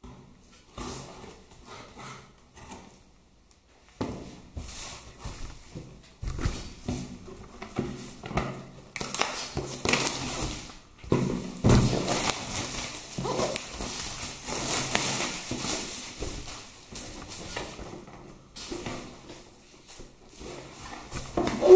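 Cardboard box flaps and plastic packaging being opened and rustled by hand, with irregular crinkling and handling knocks. A short, loud pitched squeak comes right at the end.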